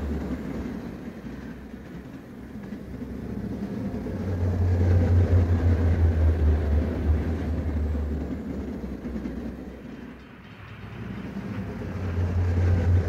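Passenger train passing at speed: a steady low rumble of cars running over the rails that fades, swells through the middle, dips again and rises near the end.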